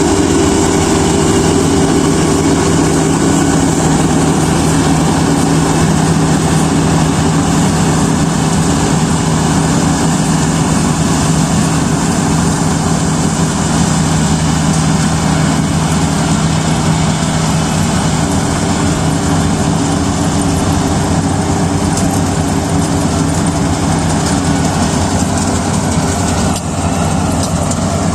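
Kubota DC-35 combine harvester running steadily while harvesting rice: a constant diesel engine hum under an even rushing, whirring machine noise.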